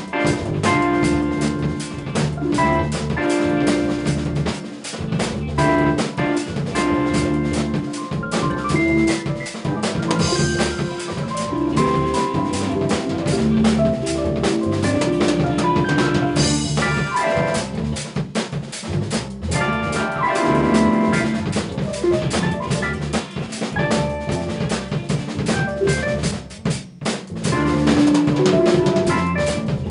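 Instrumental band music: a drum kit keeps a busy, steady beat under electric bass, electric piano, electric organ and electric guitar. The band thins out briefly near the end.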